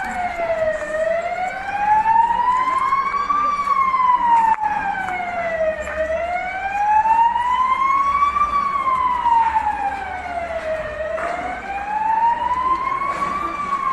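Emergency vehicle siren wailing, its pitch sliding slowly up and down, about one rise and fall every five seconds.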